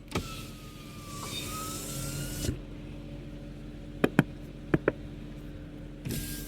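Inside a car: a steady low engine hum, a rush of hiss for the first couple of seconds and again near the end, and a few sharp clicks about four seconds in.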